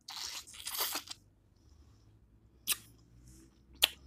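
Close-up mukbang eating sounds: a wet slurp and suck of sauce off a piece of boil seafood in the first second. Two sharp, short clicks follow later.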